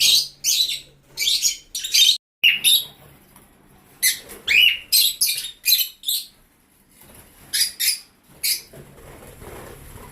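African lovebirds chirping: runs of loud, high-pitched calls in quick succession, in two main spells with a pause between, dying away near the end.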